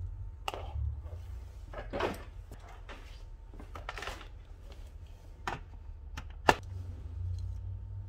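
Scattered clicks, taps and short scrapes of small tools and parts being handled during a repair of a speaker's charging port, the sharpest click about six and a half seconds in, over a steady low hum.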